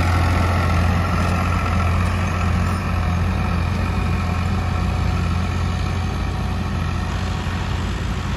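Tractor diesel engine running steadily under load with a constant low drone, easing slightly toward the end.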